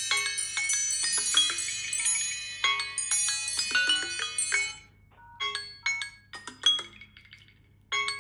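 Several smartphones ringing at once, their chime-like ringtone and alarm melodies overlapping in a dense jangle of bell notes. About five seconds in most of them stop, and a sparser tune of single chime notes carries on.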